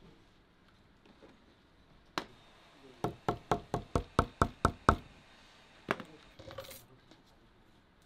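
A small hammer tapping a thin strip laid on a steel bar over a wooden work board. One blow comes first, then a quick run of about nine taps, roughly four a second, each with a short metallic ring. One more tap follows, then a light clatter as the tools are handled.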